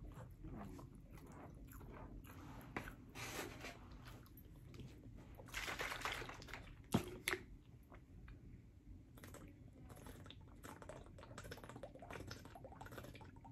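Soft, close-miked eating sounds: a person chewing and working their mouth, with many small wet clicks. A louder rustling stretch and two sharp clicks come about halfway through as a plastic tumbler is handled, and the person drinks from it near the end.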